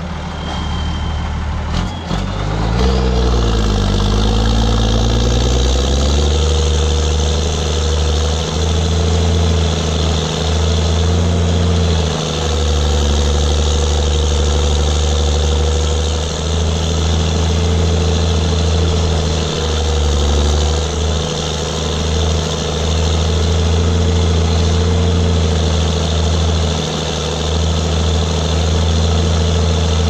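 Ford TW25's turbocharged six-cylinder diesel, heard from right by its upright exhaust stack. It revs up over the first few seconds, then runs steadily at working revs.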